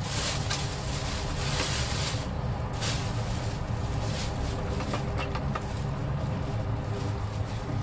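A steady low mechanical hum, with several short bursts of hiss and a few light clicks from kitchen work.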